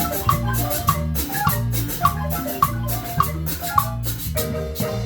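Marimba ensemble playing a tune: mallets strike quick melody notes over sustained low bass notes, with percussion keeping a steady beat.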